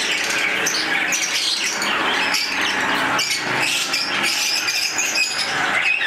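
A crowd of caged lovebirds chirping and squawking continuously, many short high calls overlapping.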